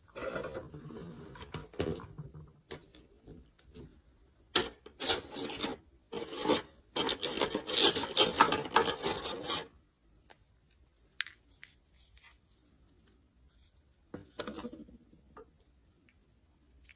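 Toy doctor set pieces and their packaging being handled, rubbing and scraping in bursts: one at the start, a longer, louder run from about four and a half to ten seconds in, and a short one near the end.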